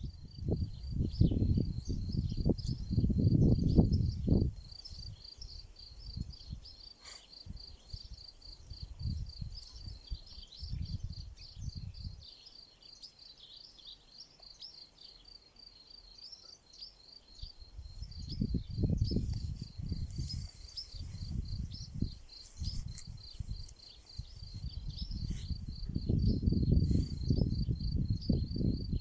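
Insects chirping in a steady, evenly pulsed high-pitched rhythm. Loud low rumbling comes and goes in stretches, heaviest in the first few seconds and over the last ten.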